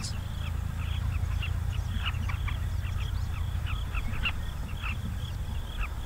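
Many birds calling at a termite swarm: short, falling chirps, several a second, over a steady low rumble.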